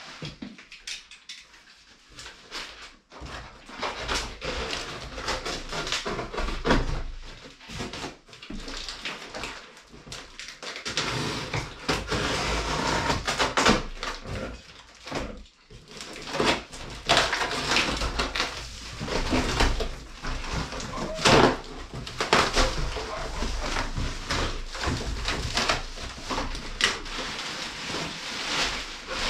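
Large cardboard box being unpacked: a box cutter slitting the packing tape, tape peeling and flaps scraping and rustling in irregular bursts. Plastic wrapping crinkles near the end.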